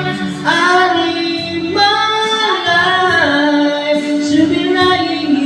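A man singing live into a microphone, holding long notes that slide from one pitch to the next.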